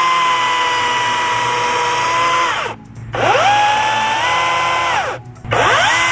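EGO 16-inch cordless chainsaw (CS1613), its brushless electric motor running at full speed with a steady high whine while cutting through a branch. Twice the trigger is let go and the whine falls away, about two and a half and five seconds in. Each time it spins quickly back up to speed.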